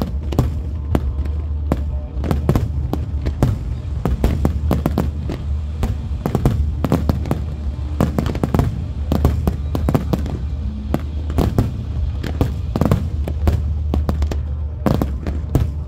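Fireworks display: rapid, dense bangs and crackles of bursting shells with no let-up, over the show's music playing on loudspeakers with a heavy bass.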